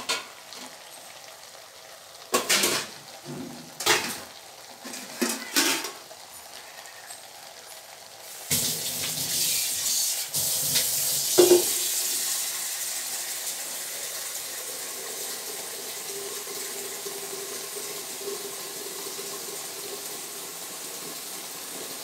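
Goat intestine (boti) curry cooking in a metal pan. A few spoon knocks and scrapes come in the first six seconds, then from about eight seconds in a louder steady sizzle starts and runs on.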